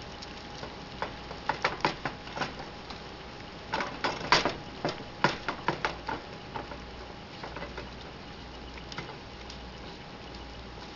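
A silicone spatula scraping and tapping against a cast-iron skillet as ground venison is stirred and broken up while it browns, with quick clicks coming in two busy bursts and then thinning out.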